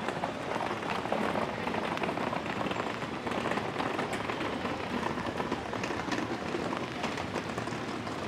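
Heavy rain falling steadily on wet pavement: a dense, even patter of many small drops.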